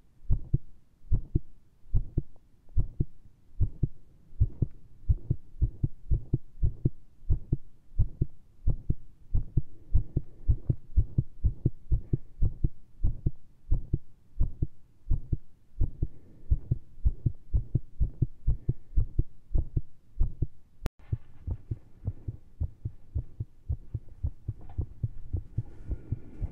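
A fast human heartbeat heard through a stethoscope, a quick steady run of low thumps, raced by a large dose of caffeine and straining pushes. About 21 seconds in there is a sharp click, after which a faint scratchy noise rides over the beats.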